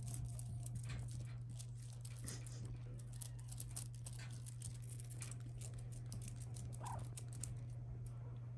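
Kittens playing on a fabric blanket: light scratching and pattering of small paws and claws on cloth, over a steady low hum. One short squeak near the end.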